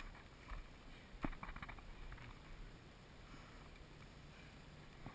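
A few faint clicks and knocks, the clearest about a second in, over a quiet outdoor background.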